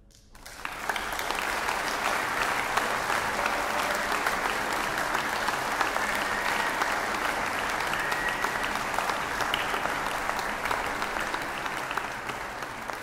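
Large audience applauding: the clapping breaks out about half a second in and holds steady and dense.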